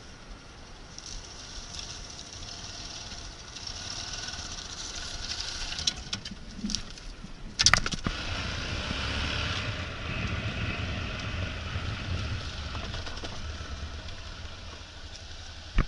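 Motorcycle engine running, heard from an onboard camera, with a steady hiss and a few sharp knocks around the middle; after a loud knock about halfway through the low engine rumble grows stronger as the bike rides along the gravel track.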